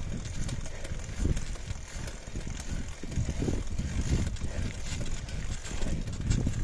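Mountain bike rolling over a rocky gravel trail: a continuous low rumble from the tyres and wind on the microphone, with frequent small clicks and rattles from stones and the bike.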